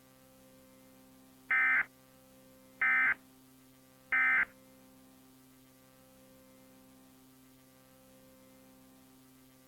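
Emergency Alert System end-of-message code: three short bursts of high digital data tones, about a second and a half apart, marking the end of the alert. A faint steady hum lies under and between them.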